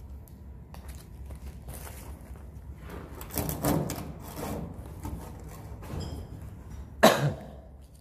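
Scraping and knocking on wooden roof rafters as swiftlet nests are picked off them, with rough scraping in the middle and one sharp, loud knock about seven seconds in, over a steady low hum.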